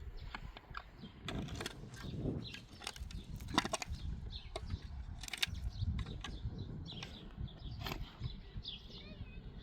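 Scattered, irregular knocks and clicks over a steady low rumble.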